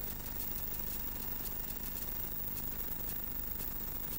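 Steady rushing noise of wind and rough sea on an open lifeboat deck, over a low rumble, with irregular crackling ticks.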